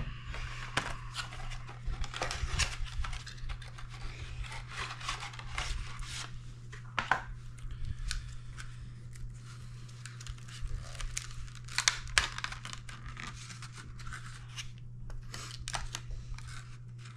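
Candy packaging being opened by hand: plastic wrapper crinkling, rustling and tearing in irregular bursts. A steady low hum runs underneath.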